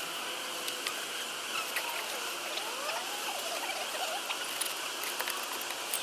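Scattered crackles, rustles and small clicks of honeycomb being handled and dropped into a plastic garbage bag, over a steady hiss.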